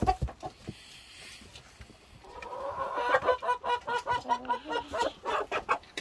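Roosters clucking: after a quiet first two seconds, a run of short, quick clucks at about four a second.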